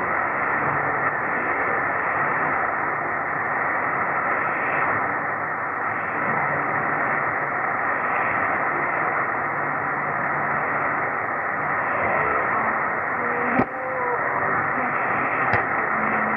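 Weak AM shortwave signal on 6210 kHz from a Belka-DX receiver: steady hiss and static with faint traces of the station's audio underneath. Two sharp static crackles come near the end.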